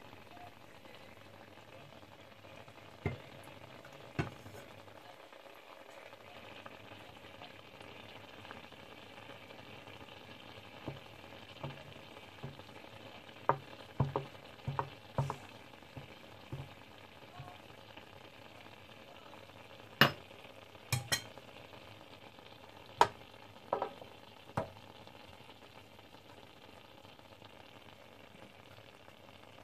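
Metal ladle clicking and tapping against a cloth-lined tray as thin rice-flour batter is spread for steamed rice rolls, a dozen or so sharp clicks in two clusters, over a steady hiss from the steamer beneath.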